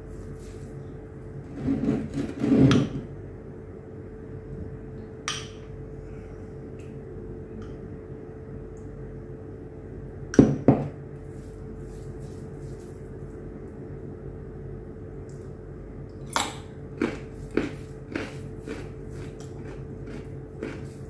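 A few knocks and clinks of dinner plates and food being handled by hand while eating, the loudest about two to three seconds in and about ten seconds in, over a steady low hum.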